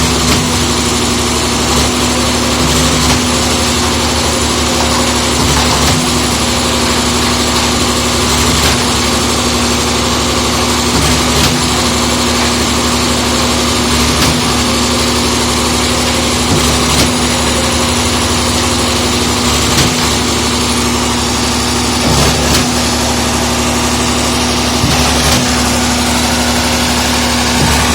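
Diesel engine of a concrete mixer pump running steadily, with a short knock recurring about every two to three seconds.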